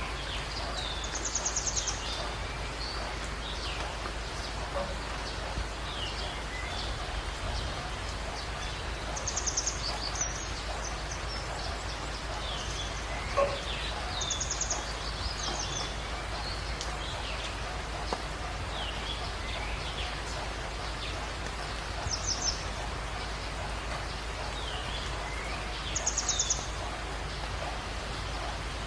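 Dawn bird chorus over steady rain: many short chirps and whistles, with a rapid high trill coming back every few seconds.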